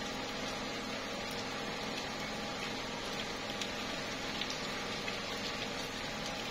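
Slow, steady rain falling on tree leaves: an even hiss with scattered drops ticking.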